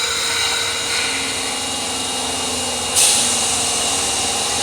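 Osaka Metro 22 series subway train pulling into the platform: steady running noise with a faint motor hum, and a sudden loud burst of air hiss about three seconds in.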